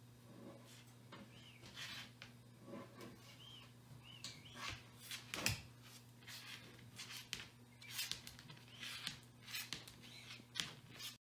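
Leopard tortoise walking on ceramic tile: faint, irregular clicks and scrapes of its claws and feet on the tiles, the sharpest about five and a half seconds in, over a steady low hum.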